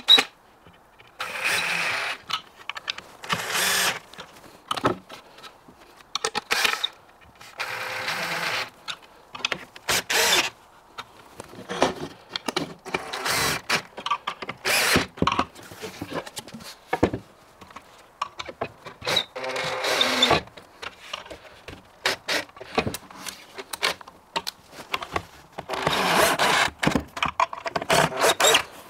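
Cordless drill-driver running in short bursts, about eight times, driving screws into quick-fit fittings to pull the laminated board cabinet panels together. Short knocks and clatter of the panels being handled come between the bursts.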